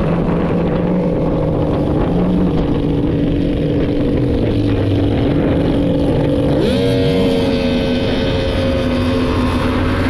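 Race-boat outboard engine running hard at speed on a tunnel-hull race boat. About two-thirds of the way through, its note jumps sharply higher.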